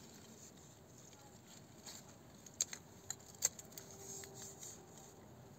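Faint rustling of grapevine leaves and stems as a hand works at the base of a young vine, with a few short, sharp clicks a little past the middle.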